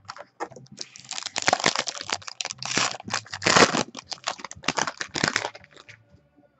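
A trading-card pack being torn open by hand, its wrapper crinkling and crackling with many quick clicks, stopping about six seconds in.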